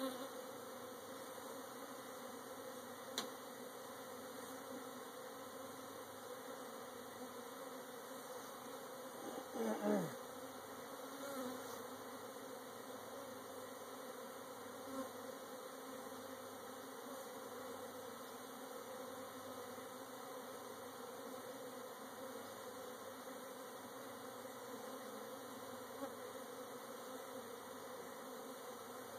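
Honey bees buzzing steadily around an open hive. About ten seconds in, a louder buzz falls in pitch as a bee flies close by, and there is a single faint click a few seconds in.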